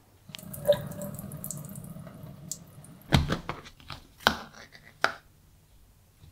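Soaking water pouring out through the holes in the plastic lid of an upturned instant-noodle pot into a sink for about three seconds. Three sharp knocks follow as the pot is handled.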